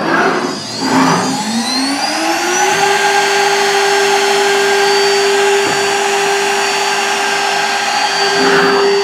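CNC router's 80 mm ER16 electric spindle spinning up: a whine rising in pitch for about two seconds, then holding one steady high pitch once it is up to speed.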